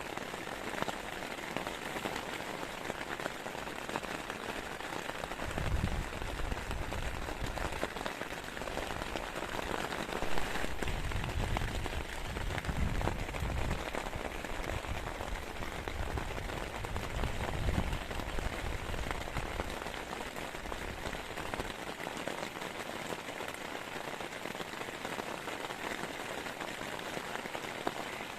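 Heavy rain falling steadily, a dense hiss of drops, with a few spells of low rumble coming and going through the middle.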